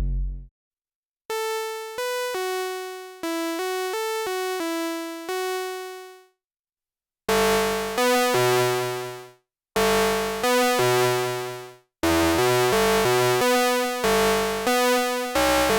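Cre8audio Capt'n Big-O analog Eurorack oscillator playing a sequenced melody of short, bright, buzzy notes. The first phrase stops about six seconds in. A second phrase with lower, fuller notes starts about a second later.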